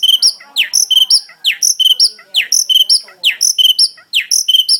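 Songbird singing loudly, repeating a quick high-pitched phrase about twice a second.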